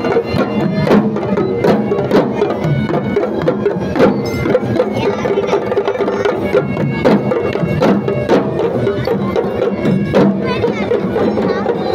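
Traditional Sri Lankan procession drumming: a troupe of drums worn at the waist, beaten together in a fast, uneven pattern of sharp strokes, over a steady held tone and the noise of a large crowd.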